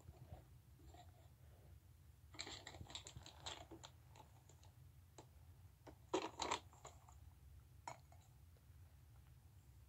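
Faint clicks and taps over a low hum: a quick run of light taps about two and a half seconds in, two louder clicks around six seconds, and one more near eight seconds.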